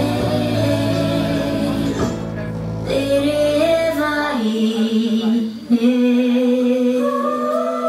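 Tahitian aparima song with female singing in slow, long-held notes. The low accompaniment drops out about halfway through, leaving the held notes on their own.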